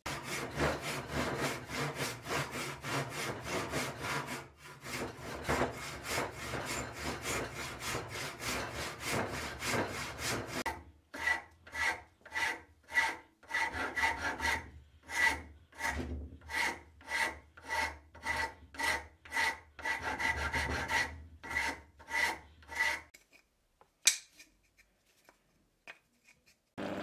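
Hand saw cutting through a wooden knife-handle block held in a vise: quick, close strokes at first, then slower, separate strokes about two a second, stopping near the end. One sharp tap follows shortly after.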